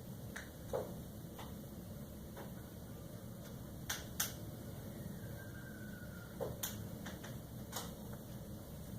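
Low steady room noise with about half a dozen light, scattered clicks and taps, the kind made by handling small objects such as a feeding spoon and dish.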